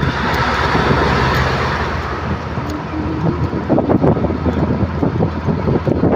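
Fast train running, a loud continuous rumble with a rush of air that eases after the first couple of seconds.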